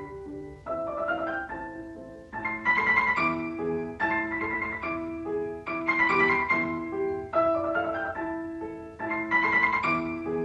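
Instrumental piano music with no singing, playing a short phrase of notes and chords that repeats every second and a half or so.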